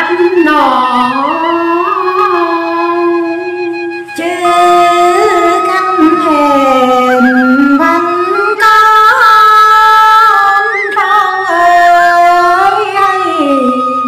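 Two women singing a Tày phong slư (phong sư) folk song in turn: one voice at a time holds long phrases that slide and bend in pitch, and the second singer takes up the line partway through.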